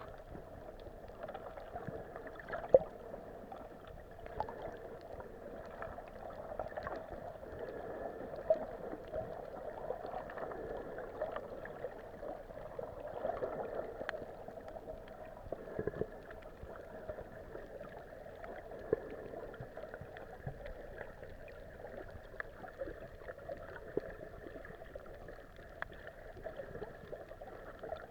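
Muffled underwater sound picked up by a handheld camera below the surface: a steady dull water noise with scattered clicks, and one sharp knock about three seconds in.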